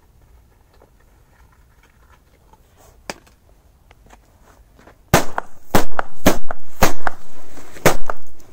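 Korsar firecrackers exploding: a quick run of about six sharp, loud bangs over some three seconds, starting about five seconds in.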